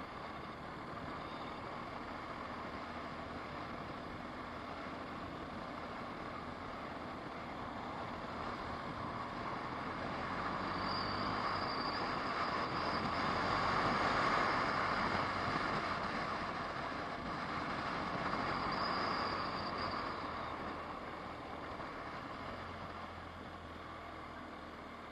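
Road and engine noise of a car driving, heard from the dashcam inside the car: a steady rush that swells louder for several seconds in the middle and then eases off.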